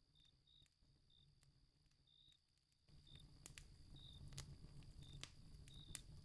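Faint night ambience: crickets chirping in short, irregular chirps over a steady high hum. About three seconds in, a low rumble and scattered sharp crackling clicks come in.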